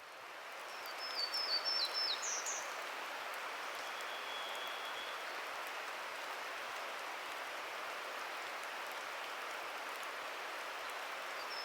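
Forest ambience fading in: a steady wash of water noise with scattered faint drips. A Townsend's warbler sings a buzzy phrase that climbs to higher buzzy notes at the end, about a second in and again near the end. A varied thrush gives one faint, long, steady whistle in between.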